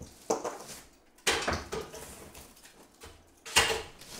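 Three sharp knocks on timber, the third about two seconds after the second, each dying away quickly: hammer work to get leftover nails out of old jarrah boards.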